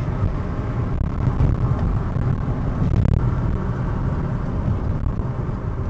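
Steady rumble of a car driving, engine and road noise.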